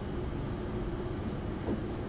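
Room tone in a lecture room: a steady low hum and rumble with a faint steady tone.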